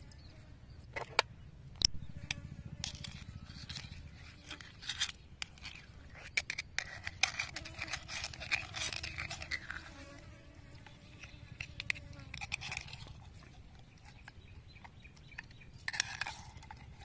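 Scattered sharp clicks and short scrapes of a thin metal pick working against conch shells as the meat is pried out, with a fly buzzing faintly through the middle stretch.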